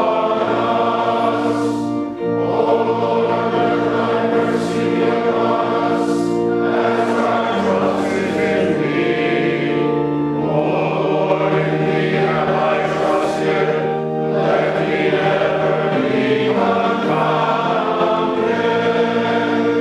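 Choir singing a hymn in sustained, slowly changing chords, with long held notes.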